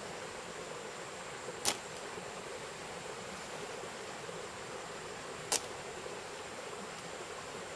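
Steady forest ambience of insects droning, with a thin, even high-pitched hum over a fluttering lower buzz. Two brief sharp clicks stand out, one about one and a half seconds in and another about five and a half seconds in.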